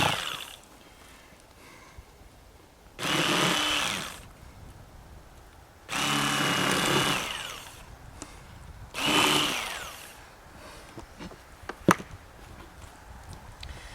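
Electric fillet knife motor run in three short bursts of about a second each, each with a steady whine, as it cuts through the fish's rib cage. A single sharp click near the end.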